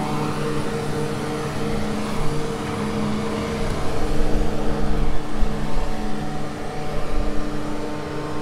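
Self-propelled forage harvester chopping sweet corn: a steady hum and whine from its engine and cutterhead as it feeds the crop through and blows it into the wagon. Low rumbling swells through the middle.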